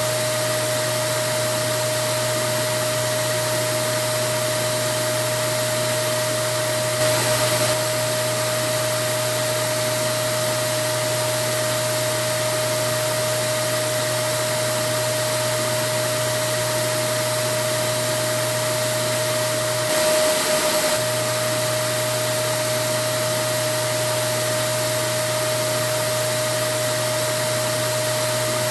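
Vacuum cleaner running steadily: an even rushing noise with a constant motor whine and low hum. It swells slightly for a moment twice, about a quarter and about two thirds of the way through.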